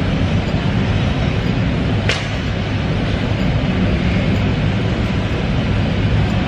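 Steady loud rumbling noise, with a single sharp click about two seconds in.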